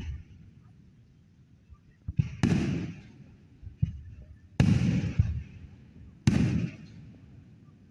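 Aerial fireworks going off: three loud booms about two seconds apart, each trailing off in a short rumble, with a few smaller pops and a sharp crack among them.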